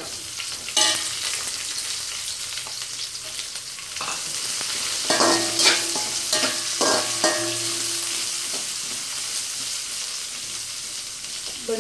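Sliced onions sizzling in hot oil in an aluminium kadai as they are sautéed. A metal utensil clinks against the pan about a second in, then scrapes and rings against it in a run of stirring strokes midway through.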